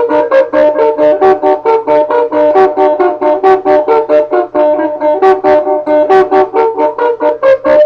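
Instrumental music: a fast run of evenly repeated plucked notes, about five to six a second, over a steady held tone.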